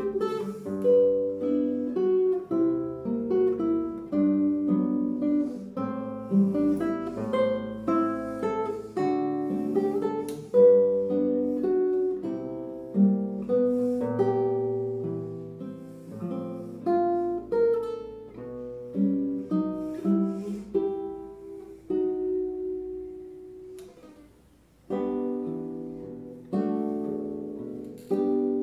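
Solo nylon-string classical guitar, fingerpicked: a continuous flow of plucked notes and chords ringing over one another. Near the end one sound fades away almost to silence before the playing starts again.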